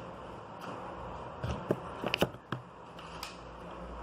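Paper craft materials being handled on a table: a handful of short, light taps and clicks about halfway through, over a quiet room background.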